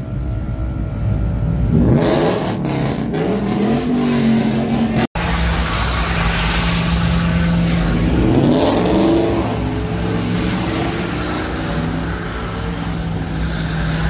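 Pickup truck engine revving hard during a burnout, its rear tires spinning and smoking on the pavement. The engine climbs in pitch about two seconds in and again about eight seconds in, then holds at high revs, with a sharp break in the sound just after five seconds.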